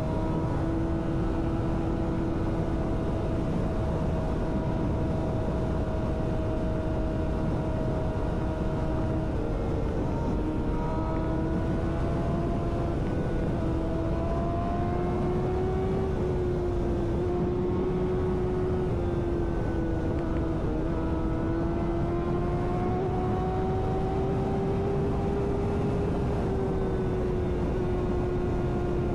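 Yamaha sport bike engine running steadily at highway speed, with wind and road rush over it. The engine note dips briefly about nine seconds in and again about twenty seconds in, each time climbing slowly back up as the throttle changes.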